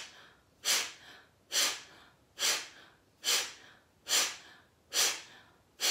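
A person doing rhythmic, forceful exhales through the nose, like blowing the nose, about seven short sharp puffs in a row at a little over one a second. This is a rapid-exhale breathing exercise, with each inhale through the mouth coming passively between puffs.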